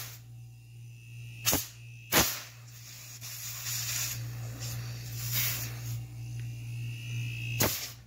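Hermetic refrigerator compressor running on the bench with a steady low hum. A hiss swells in the middle, and three sharp clicks stand out, two close together early and one near the end.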